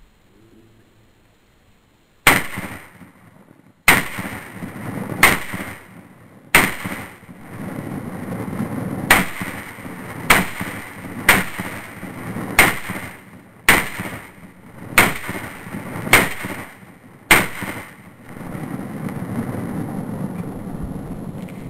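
Beretta PX4 Storm Subcompact pistol firing twelve shots, mostly about one every second and a bit, with a longer pause after the fourth. A steady rushing noise runs underneath the later shots and goes on after the last one.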